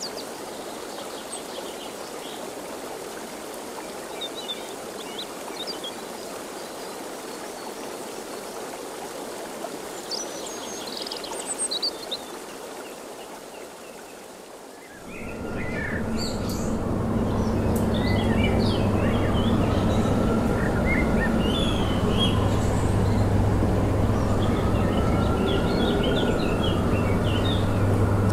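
Small birds chirping over a steady rushing background. About halfway through the background changes abruptly to a louder steady low hum, and the chirping becomes denser.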